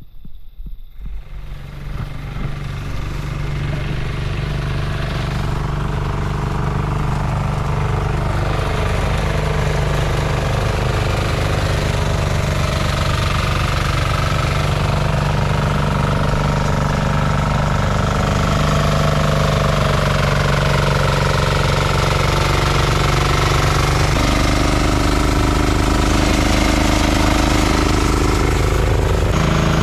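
A small engine catches and runs steadily, getting louder over the first few seconds, with its pitch shifting a step about three-quarters of the way through and again near the end.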